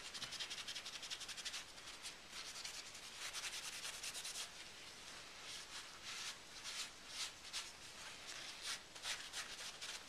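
Kitchen roll dampened with white spirit rubbing back and forth over a CPU's metal heat spreader, scrubbing off old thermal paste. The strokes come quick and nearly continuous for the first few seconds, then in shorter spurts.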